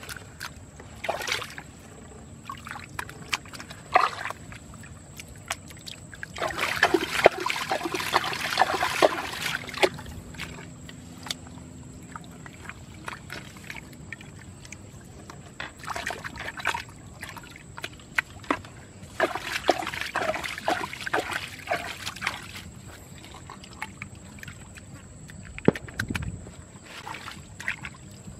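Hands sloshing and squelching in a muddy, water-filled hole, the wet splashes coming in two longer bouts, about a quarter of the way through and again about two-thirds through, with scattered single splashes between.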